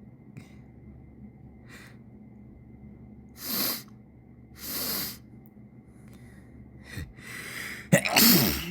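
A person sniffling and drawing sharp breaths through the nose several times, building up to a sudden, loud voiced sneeze near the end.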